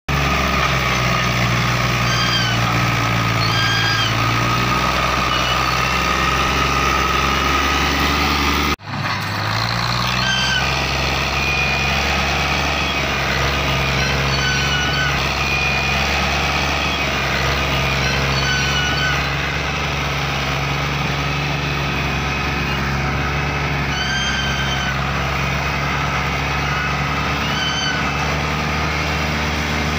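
Fiat 480 tractor's diesel engine running steadily under the load of a heavily loaded sugarcane trolley, its note shifting slightly a few times. Short high-pitched tones sound over it several times, and the sound drops out briefly about nine seconds in.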